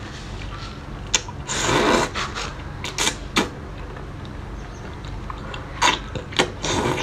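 Close-up eating sounds of a woman sucking in and chewing cooked octopus tentacles: a long slurp about two seconds in and several short wet smacks and clicks, over a low steady hum.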